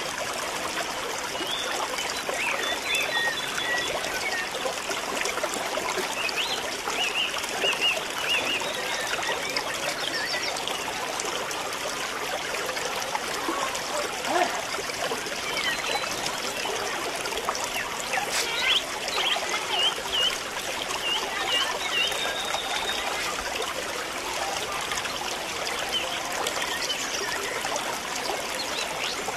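Steady rushing noise like running water, with faint, short high chirps now and then.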